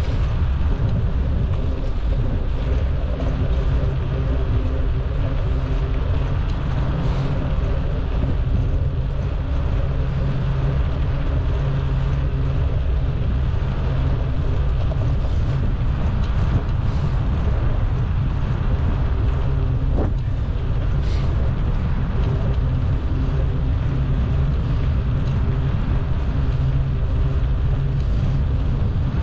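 Steady low road rumble heard while riding, with a constant low hum running through it. A single short tick comes about twenty seconds in.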